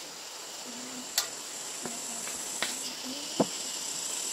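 A few sharp clinks and knocks of a ceramic bowl and plastic ladle against a metal wok as sliced food is tipped into fish broth and the ladle is set down, the last knock the loudest. A steady high hiss sounds underneath, a little louder near the end.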